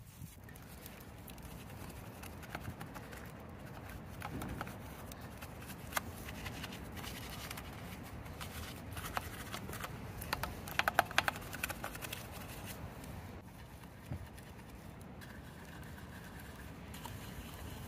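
Hand car-cleaning work: steady rubbing and scrubbing with scattered light clicks and taps, including a quick run of clicks about eleven seconds in and a faint steady tone near the end.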